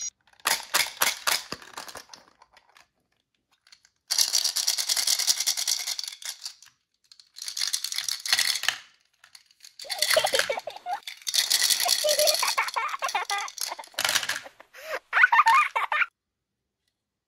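Hard-shelled chocolate candies rattling in a clear plastic sectioned container and clattering into small plastic toy bathtubs. It begins with a few sharp clicks, followed by several rattling bursts of one to three seconds each with short gaps between them.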